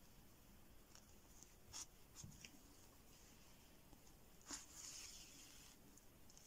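Near silence with a few faint rustles and light ticks of needle, thread and knitted yarn being handled while a crocheted flower is hand-sewn onto a knitted headband; the longest is a soft hiss a little under five seconds in, like thread drawn through the fabric.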